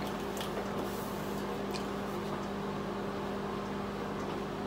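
A steady low hum, as from an appliance or fan motor, with a few faint ticks.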